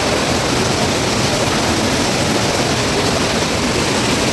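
Heavy rain pouring down: a loud, steady rush of water.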